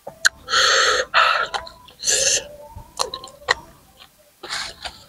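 Close-up chewing of crunchy raw green papaya salad and leaves: crunching about a second in, again around two seconds and near the end, with wet mouth clicks between.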